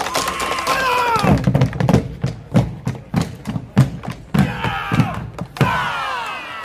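Several bombo legüero drums beaten together with sticks in a malambo routine. Sharp stick clicks on the wooden rims give way about a second in to deep booms, about three a second. A last strike near the end closes the routine.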